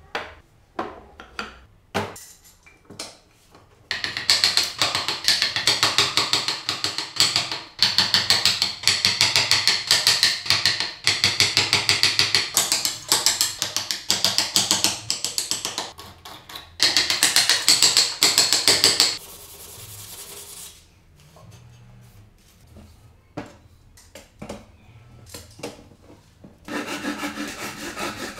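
Hand tools shaping wood: scattered light taps, then a long run of fast, repeated scraping strokes as a chisel pares shavings off the block. Near the end a hand saw starts cutting with steady back-and-forth strokes.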